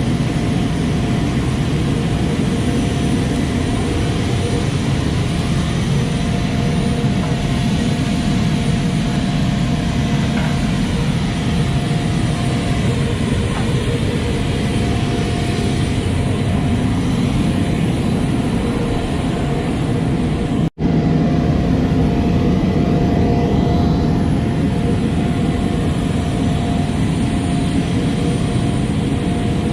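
F-16D Fighting Falcon's jet engine running steadily on the ground, a loud even rush with a steady whine. The sound cuts out for an instant about two-thirds of the way through.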